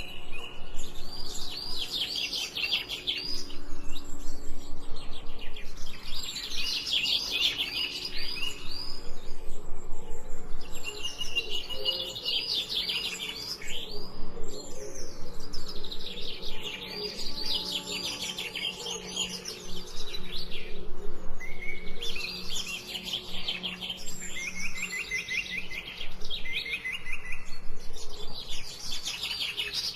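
Songbirds singing: quick trilled phrases of rapid repeated chirps, each lasting a second or two and recurring every few seconds, over a faint steady low hum.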